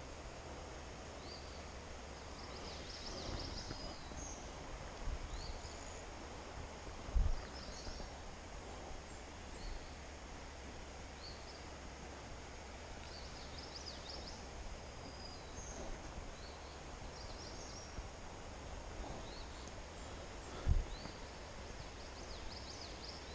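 Woodland ambience: birds chirping and singing on and off over a steady low rumble. Two dull thumps come about 7 and 21 seconds in.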